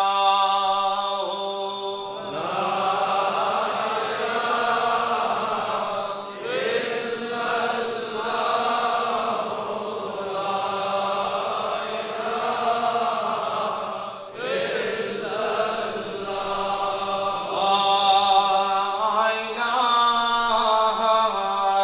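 Zikr chanting by male voices, sung in long, drawn-out phrases with short breaks between them.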